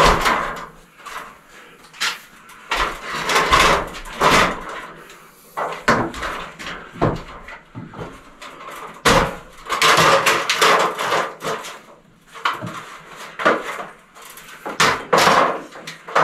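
Irregular knocks and clatter of an aluminum stepladder being moved, set up and climbed beside a wooden stud wall.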